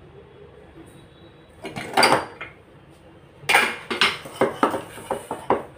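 Stainless steel pressure cooker being opened: metal lid and pot clattering about two seconds in, then a quick run of metal knocks and clinks near the end.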